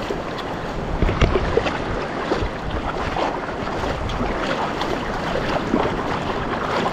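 Shallow seawater sloshing and splashing close to the microphone in many small, irregular splashes, with some wind on the microphone.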